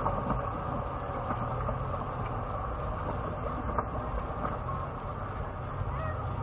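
Steady low rumble of a Lexus GX470's V8 engine at low speed, heard from inside the cabin, with a few faint ticks.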